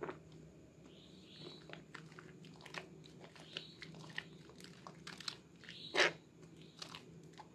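Hands squeezing and kneading thick soap lather in a basin of soapy water, making wet squelching and crackling foam sounds, with a louder squelch about six seconds in.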